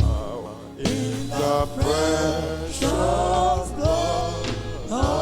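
Gospel worship song: singing over a band with a steady bass and a drum beat about once a second.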